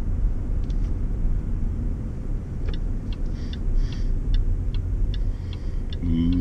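Land Rover driving slowly, heard from inside the cab: a steady low rumble of engine and road. From about three seconds in, the turn indicator ticks evenly, a little over twice a second.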